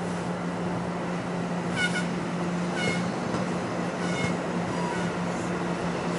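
New Jersey Transit bilevel MultiLevel coaches rolling past: a steady rumble with a steady low hum, broken by four short, high-pitched wheel squeals about a second apart.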